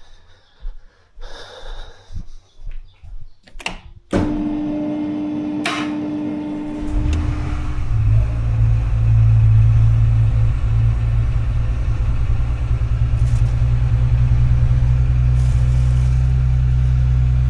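A few small knocks, then the Porsche Macan S's engine starts about four seconds in and keeps running, settling into a steady low drone that gets stronger a few seconds later.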